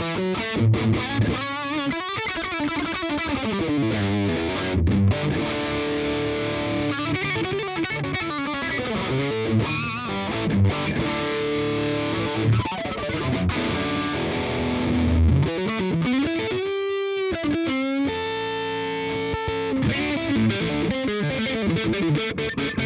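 Electric guitar played with heavy overdrive through a Tubesteader Sunkeeper drive pedal, voiced after an Orange Rockerverb amp: chords and single notes, with a wavering, bent note about two-thirds of the way through.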